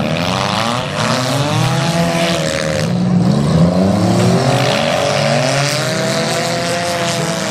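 Several demolition derby cars' engines revving at once, their pitches rising and falling against each other as the cars manoeuvre and spin their tyres on the grass.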